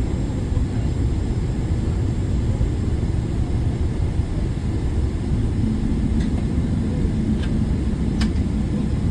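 Steady low rumble of a jet airliner's engines and airframe heard inside the passenger cabin. A faint steady hum joins about six seconds in, along with a few faint clicks.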